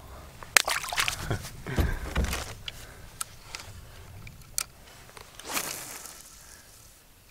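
Scattered clicks and knocks of a small landed bass and fishing tackle being handled in an aluminium-free hull canoe, with a couple of dull thumps against the boat about two seconds in and a brief rush of noise near the end.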